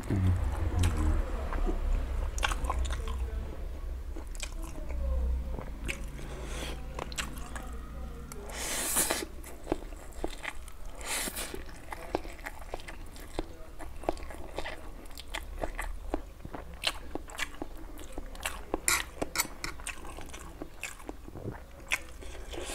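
Close-up eating sounds: a person sucking in Wai Wai instant noodles and chewing them, with many short wet mouth clicks and a few longer slurps near the middle.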